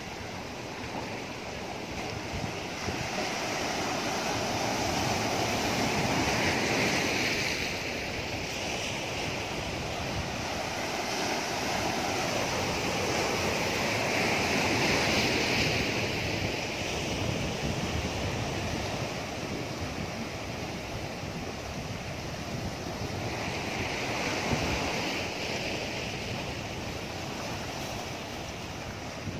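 Sea waves breaking and foaming over boulders, a continuous rush that swells and eases in several slow surges.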